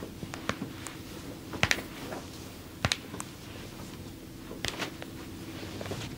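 Hands massaging a body, heard as sharp, irregular clicks and pats: a quick loud cluster about a second and a half in, and single ones near three and near five seconds, over a low steady hum.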